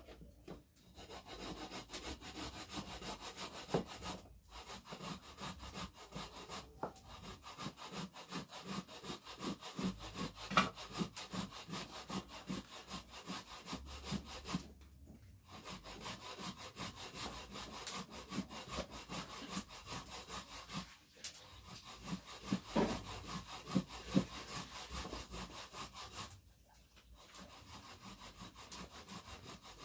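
Rapid, rhythmic scraping strokes of food being worked by hand. The strokes come in runs of several seconds, broken by brief pauses.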